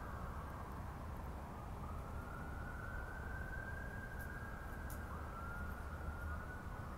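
Emergency-vehicle siren wailing, its pitch slowly rising and falling in long sweeps, over a steady low rumble.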